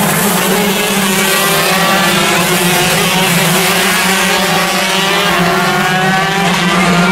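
Several shifter kart two-stroke engines racing at once, their high-pitched whine rising and falling as the karts accelerate and brake through the corners.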